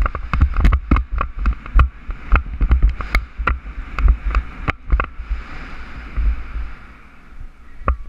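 Mountain bike clattering fast over a rough dirt track: a rapid string of sharp knocks and rattles, thinning out after about five seconds into a steadier rushing hiss, over wind rumbling on the helmet camera's microphone.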